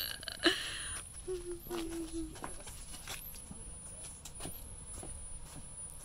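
A small vehicle's motor running at a distance under faint outdoor ambience, with a short steady hum about a second and a half in and a faint high chirp repeating about every second and a half.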